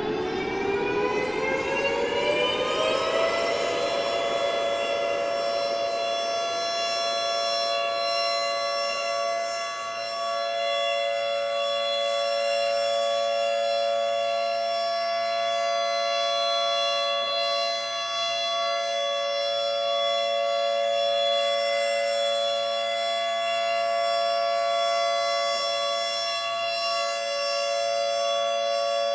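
Air-raid siren winding up, its pitch rising for the first three or four seconds, then holding one steady wail.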